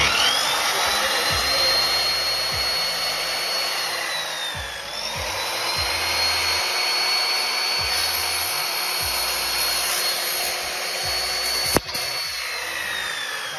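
Sliding aluminium-cutting mitre saw with a 2000 W motor and 255 mm blade switched on: its motor whines up to speed and runs with a steady high whine. The whine sags briefly about four and a half seconds in and recovers. Near the end there is a sharp click, and the whine starts to fall as the motor spins down.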